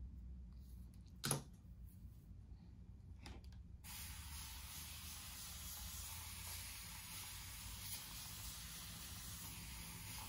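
Spray bottle misting a section of hair: a steady, unbroken hiss that starts about four seconds in and keeps going. A sharp click about a second in.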